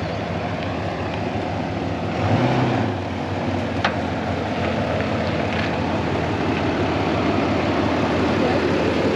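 Vehicle driving along: a steady engine hum under even road noise, with a brief low rumble about two and a half seconds in and a single sharp click a little later.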